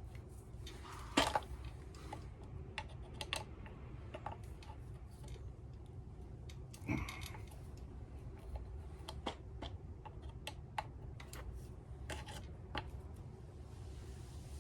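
Scattered clicks and light taps of a screwdriver and handling on a strimmer's plastic housing as tight screws are worked out. Louder knocks come about a second in and about seven seconds in, over a low steady hum.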